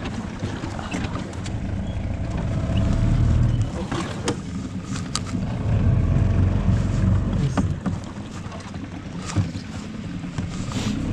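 Wind rumbling on the microphone aboard a small boat on open water, swelling and easing, with a few light knocks.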